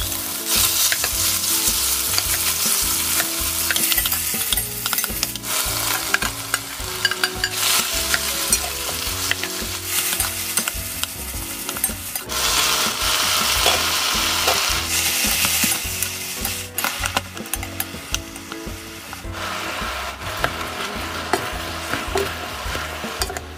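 Beef brisket sizzling as it drops into hot oil in a pot, then frying with sliced green onion and radish while a wooden spoon stirs and scrapes through it. The sizzle flares up loudly several times as the food is turned and more goes in.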